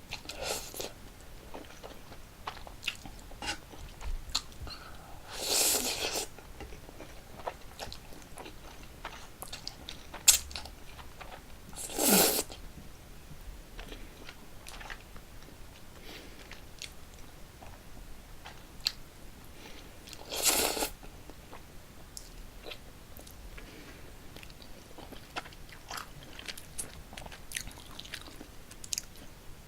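Close-miked eating of Paldo Bibimmyeon cold spicy noodles: steady chewing with many small mouth clicks, and three louder slurps of noodles, about a fifth of the way in, near the middle, and about two-thirds through.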